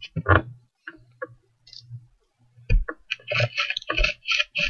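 Match-head fragments being crushed and ground on a sheet of paper with a small hand-held cylinder, giving a series of short clicks and crunches. They come sparsely at first, then in a quick dense run from nearly three seconds in.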